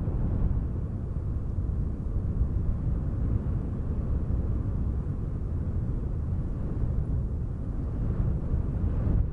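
Steady wind noise: a low, gusting rumble that rises and falls without letting up.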